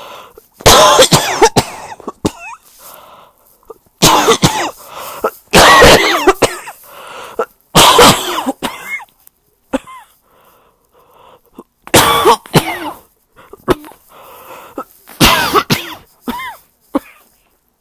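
A person coughing with a cold: about six loud fits a few seconds apart, each a quick run of several harsh coughs, with quieter throat and breath sounds in between.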